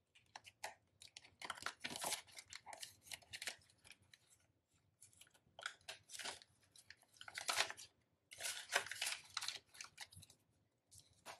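Paper banknotes rustling and clear plastic binder pockets crinkling as bills are handled and slipped in and out of the pockets, in short irregular bursts.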